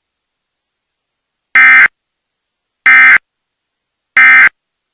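Emergency Alert System end-of-message (EOM) signal: three short, identical bursts of SAME data tones about a second apart, marking the close of the alert.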